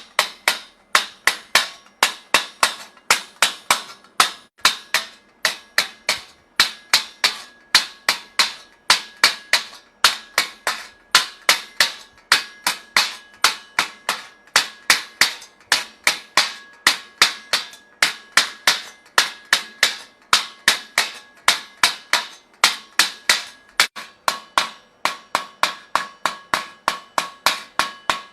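Hammer striking metal in a steady rhythm, about three blows a second, each with a short ringing tone.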